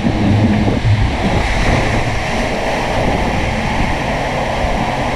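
Water rushing under an inflatable raft as it speeds down an enclosed water-slide tube, with wind buffeting the microphone: a loud, steady rush.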